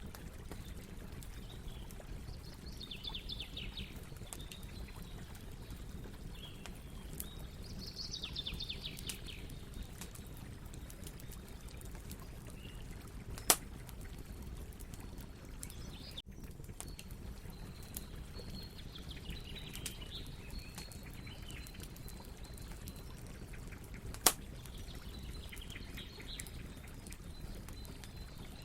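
Campfire burning with steady crackling and a low rush. Two sharp, loud pops come about 13 and 24 seconds in. Birds call in short bursts of quick chirps several times in the background.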